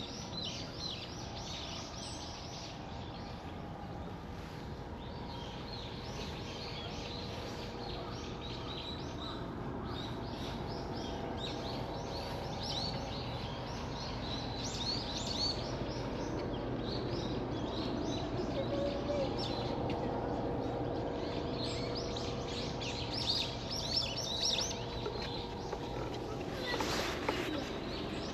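Small birds chirping: many short high calls in clusters, busiest around the middle and near the end, over a steady low hum of background noise. A brief louder noise comes near the end.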